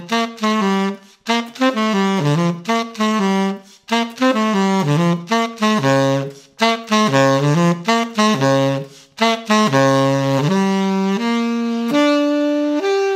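Unaccompanied tenor saxophone playing a melodic line of short phrases with brief breaths between them, moving between low notes and higher ones. Near the end it settles on one long held note.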